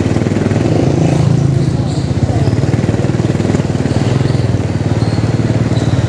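Motorcycle engine running steadily under way, its firing heard as a fast, even pulsing.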